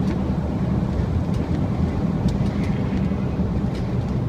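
Steady road and engine noise of a car driving across a windswept bridge, a low drone with a few faint ticks.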